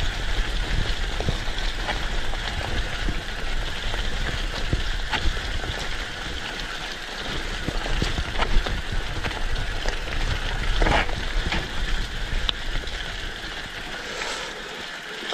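Mountain bike rolling fast down a rocky dirt track: tyres crunching over gravel and stones, with frequent small knocks and rattles from the bike, over a constant low rumble of wind on the microphone. One louder clatter comes about eleven seconds in.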